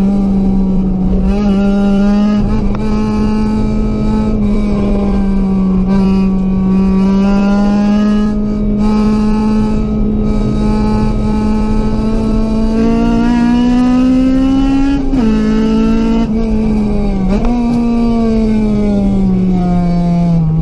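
Honda CRX's B16A1 four-cylinder VTEC engine running hard at a steady high pitch, with sudden short drops in pitch about fifteen and seventeen seconds in, then easing off near the end.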